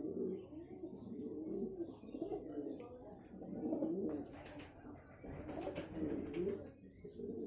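Domestic fancy pigeons cooing: several low, warbling coos follow one another and overlap throughout, with a few faint clicks about two thirds of the way through.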